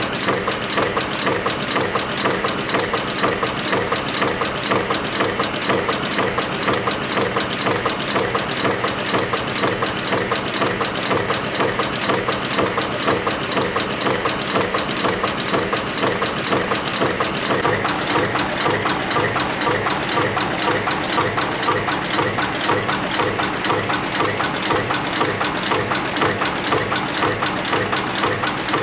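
FB-220 wire- and flat-spring press forming machine running at high speed, its press and bending units cutting and bending wire in a fast, even rhythm of mechanical strokes.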